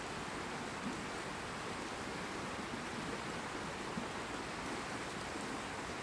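Steady rush of a river running high, an even hiss of flowing water.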